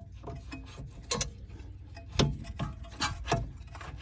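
A few sharp metallic clicks and knocks, about five, spread irregularly, as rear brake caliper slider pins are pushed in and the caliper is worked into place over the new pads.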